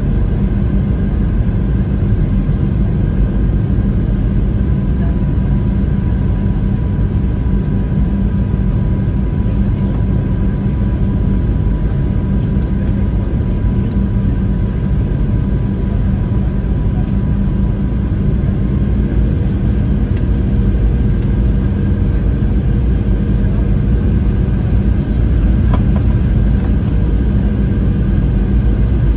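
Cabin noise of a Boeing 737-700 on approach, heard from a window seat beside the wing: its CFM56-7B turbofan engines and the airflow make a loud, steady rumble. A faint high whine steps up in pitch a couple of times.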